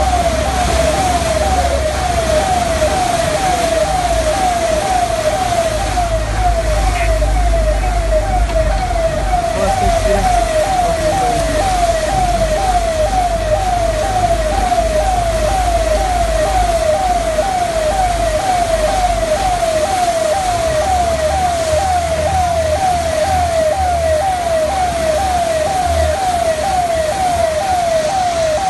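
Electronic siren sounding a fast, steady yelp of evenly repeating pitch sweeps, over a continuous rush of splashing floodwater.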